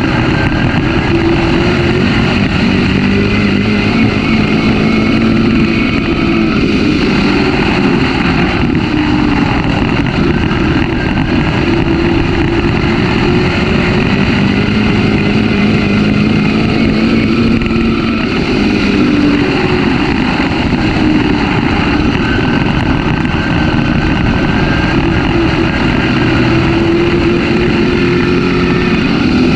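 A race car's engine running hard, heard from the cockpit. Its pitch rises and falls in long sweeps every several seconds, over a steady rush of wind and road noise.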